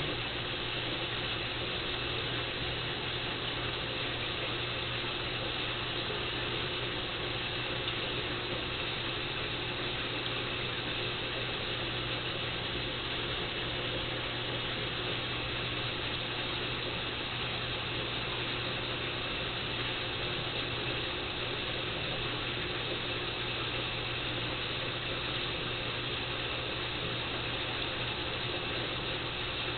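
Steady mechanical hum and hiss from running aquarium equipment, unchanging throughout, with a low buzzing hum under an even hiss.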